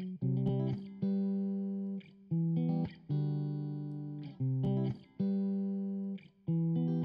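Background music of plucked guitar: a new note or chord sounds about once a second, each ringing and fading away.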